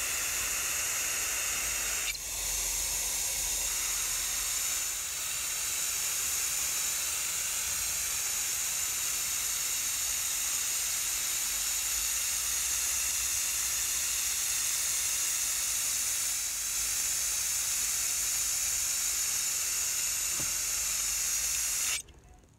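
Aerosol can of silicone spray hissing steadily as its nozzle is held down, coating plywood with a waterproofing layer. The spray falters briefly about two seconds in and cuts off abruptly near the end.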